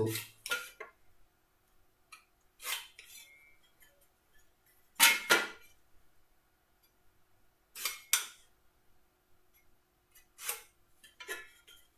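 Marking-out tools working on timber: short, sharp scrapes and knocks, about nine of them, several in quick pairs, with quiet gaps between.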